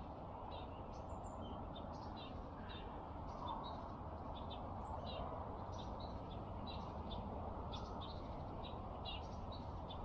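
Small birds chirping, many short calls repeating through the whole stretch, over a steady low background noise.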